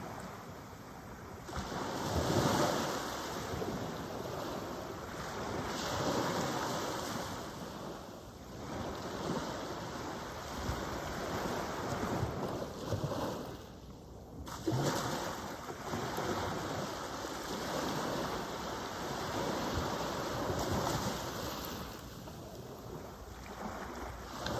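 Ocean surf breaking and washing up on a beach, the rush swelling and fading every few seconds as each wave comes in.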